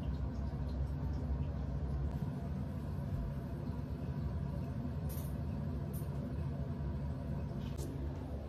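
A steady low hum, with a few faint short clicks about halfway through and again near the end.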